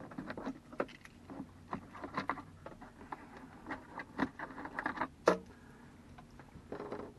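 Irregular clicks and light knocks of a small Torx screwdriver and plastic overhead-pocket trim being worked loose, with one sharper knock about five seconds in, over a faint steady hum.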